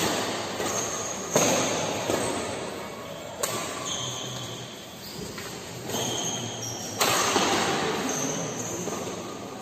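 Badminton doubles rally: rackets strike the shuttlecock with sharp smacks, four in all, at irregular gaps of one to three and a half seconds. Brief high squeaks come between the hits.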